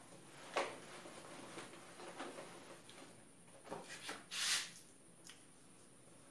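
Faint clicks and taps in a quiet room, with one short breathy rush about four and a half seconds in.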